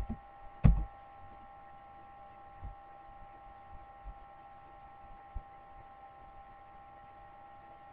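Steady electrical hum with a faint high whine from the recording setup, broken by a sharp click about two-thirds of a second in and a few faint ticks after.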